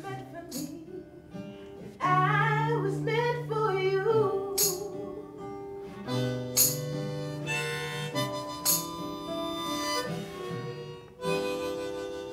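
Acoustic guitar strummed while a harmonica in a neck rack plays over it. The harmonica comes in loudly about two seconds in with wavering, bending notes over steady guitar chords.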